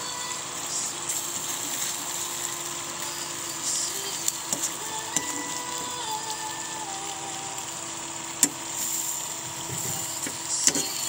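Food cooking in a pan with a steady sizzling hiss, and several sharp knocks of a utensil against the pan: a cluster about four to five seconds in, one at about eight and a half seconds, and two near the end.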